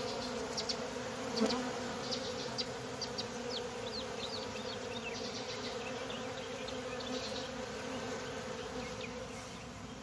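Many honeybees buzzing at a nuc box entrance, a steady hum with faint short high chirps over it. The beekeeper takes the commotion for bees fighting over a nuc whose colony had died, or a caught swarm.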